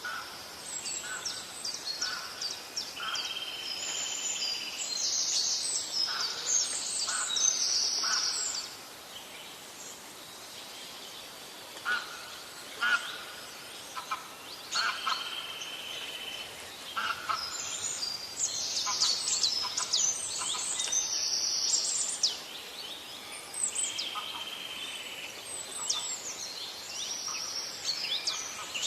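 Several songbirds singing and chirping at once: quick high chirps and whistles in busy bursts with quieter gaps between, over a faint steady background hiss.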